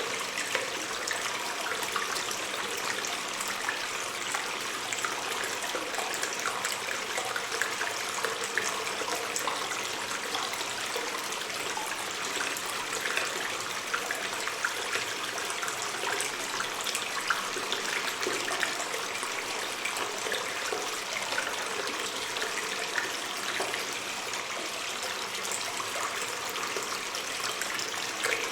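Water stream trickling and splashing steadily inside a cave, a constant rush of water with many small splashes and drips.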